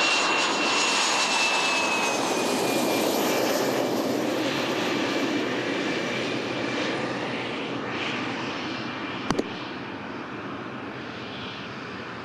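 Tejas light combat aircraft's GE F404 turbofan whining at low power on the landing rollout, the high whine dropping slightly in pitch and the jet noise fading steadily as the aircraft rolls away. A brief sharp double click about nine seconds in.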